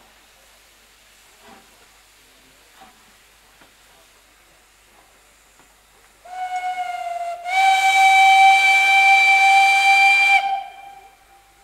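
Steam locomotive whistle, on LMS 'Crab' 2-6-0 No. 13065: it starts softly about six seconds in, then opens to a loud, steady blast with rushing steam for about three seconds before dying away.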